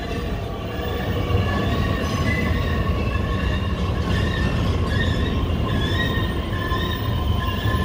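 Metra bilevel commuter cars rolling past at the platform: a steady low rumble of steel wheels on rail, with short, repeated high-pitched squeals over it.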